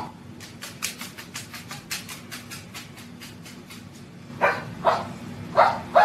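A few short, loud dog-like barks near the end, after a stretch of faint quick clicking, about five clicks a second.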